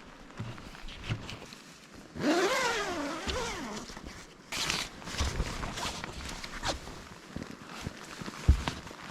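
An animal call about two seconds in, lasting nearly two seconds, its pitch falling, then rising and falling again. A short rasp follows, with scattered small knocks.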